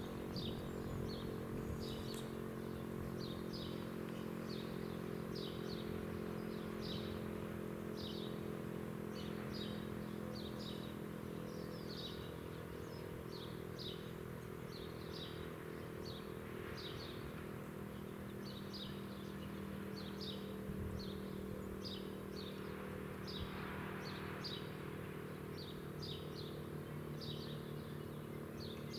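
A small bird chirping repeatedly, short high chirps about once a second, over a steady low hum made of several tones.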